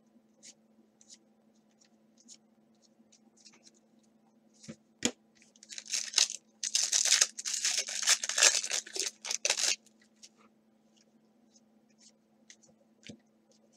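Soft ticks of trading cards being flicked and handled, a single knock about five seconds in, then a 2017 Donruss baseball card pack's wrapper torn open and crinkled for about four seconds.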